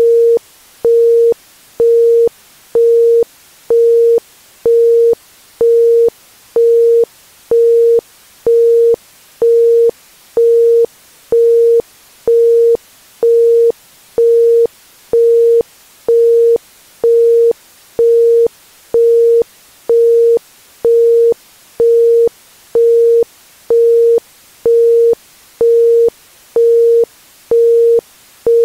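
Isochronic tone: a pure 465 Hz tone pulsed on and off about once a second (1.05 Hz), in even, evenly spaced beeps over a faint background hiss.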